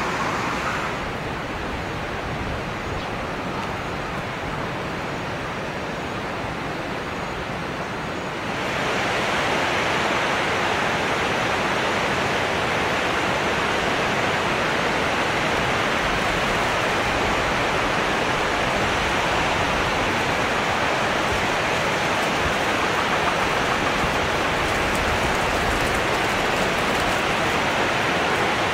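River water rushing steadily. It grows louder and brighter about eight seconds in.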